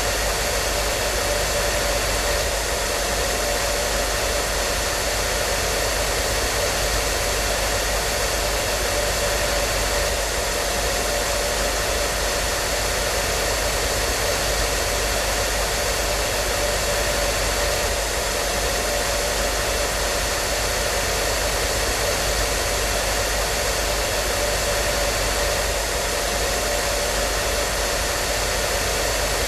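Hair dryer running steadily: an even rushing noise of blown air with a faint motor hum and a few thin steady tones, unchanging throughout.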